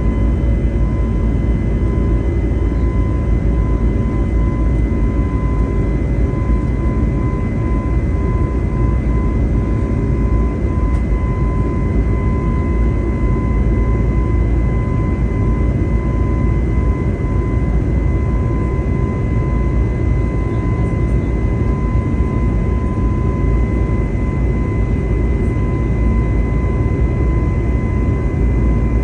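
Steady cabin noise inside an Airbus A320neo airliner in flight: a loud, even drone of jet engines and airflow with a faint steady whine on top.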